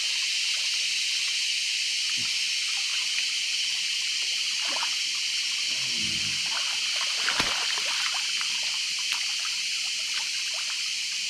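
Shallow river water running and trickling, steady throughout, with a few small knocks, the loudest about seven seconds in.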